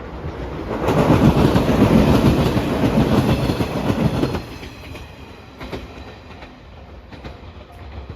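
A train passing close by at a level crossing: a loud rush of wheel-on-rail noise with clattering over the rail joints. It builds about a second in and cuts off suddenly about four and a half seconds in.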